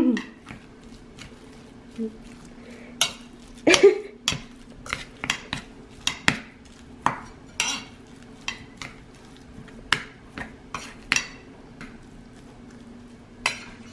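Metal utensil scraping and clinking against a stainless steel bowl, mixing raw dog food in short, irregular strokes.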